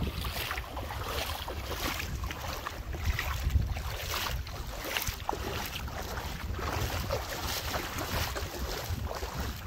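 Wind buffeting the microphone in a steady low rumble, with irregular splashes of feet wading through ankle-deep water.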